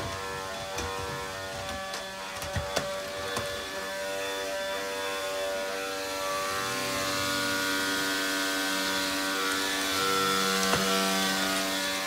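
Vacuum cleaner running steadily, its hum changing in tone about halfway through, with a few sharp knocks in the first few seconds.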